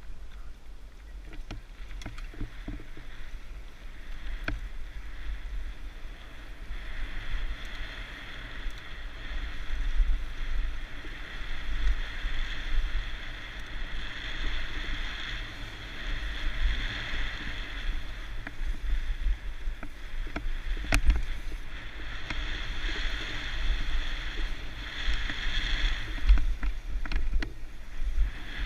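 Mountain bike riding down a bike-park trail: tyres rolling over dirt and gravel and wind buffeting the microphone, with rattles from bumps and one sharp knock about three-quarters of the way through.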